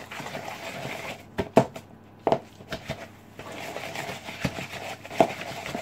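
Wooden spoon beating a soft butter, sugar and egg mixture in a plastic mixing bowl: soft scraping and squelching with irregular knocks of the spoon against the bowl.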